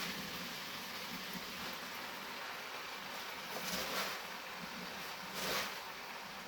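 Chicken and spice masala sizzling steadily in a pot, with two soft swishing scrapes about four and five and a half seconds in as spinach is added and stirred through.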